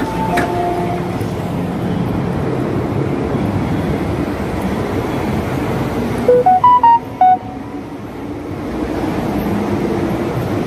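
Steady rumble and hum of an underground metro platform with an MTR M-Train beside it. About six seconds in, a short electronic chime of five or six notes rises in pitch and then falls.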